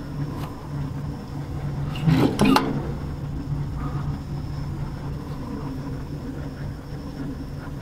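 A diesel semi-truck engine idling with a steady low hum. A short, louder sound comes about two seconds in.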